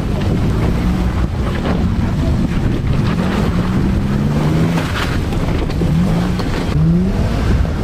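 Off-road 4x4 engine at low crawling speed on rocks, revving up in short bursts several times, with wind buffeting the microphone.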